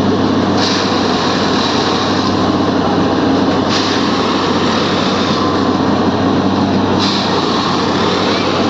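Railway track maintenance machine running, a steady engine hum under a burst of higher-pitched noise that starts abruptly about every three seconds and fades over a second or two: about half a second in, near four seconds and at seven seconds.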